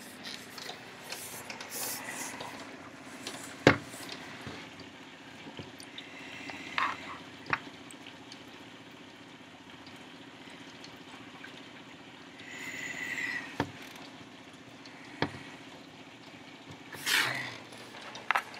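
Heavy rain falling on a wooden deck: a steady, even hiss with a few sharp clicks scattered through it and a faint low hum underneath. A brief louder noise comes near the end.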